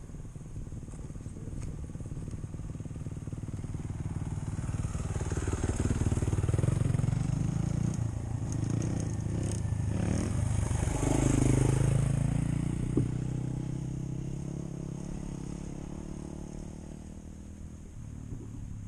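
Off-road vehicle engines running and revving, their pitch rising and falling as they pass. The sound swells twice, about six and twelve seconds in, then fades.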